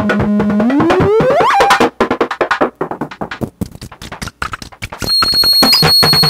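Make Noise Strega synthesizer's time circuits ringing on with feedback after activation is turned down. A held low tone glides steeply upward about a second in. It gives way to a dense stream of rapid, irregular clicking pulses of clock noise, and thin high whistling tones join near the end.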